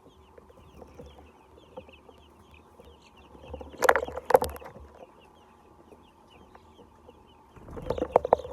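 Chickens clucking and calling, with a louder cluster of calls about four seconds in and again near the end, over a steady hum.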